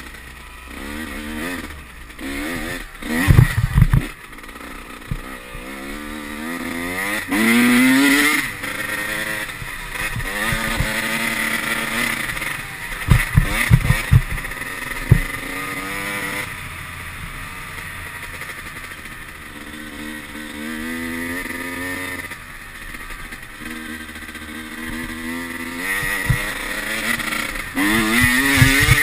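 Dirt bike engine being ridden hard, revving up through the gears with its pitch rising again and again, easing off in between. Heavy knocks and rattles come in a few times as the bike jolts over bumps, about three seconds in, in the middle and near the end.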